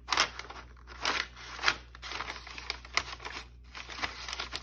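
A cat pawing and pouncing on a sheet of brown kraft packing paper, the paper crinkling and rustling in irregular bursts.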